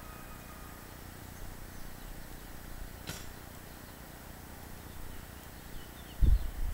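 Outdoor ambience: a steady low rumble, with a single sharp click about three seconds in. Near the end come a few faint high chirps and then a brief loud low thump.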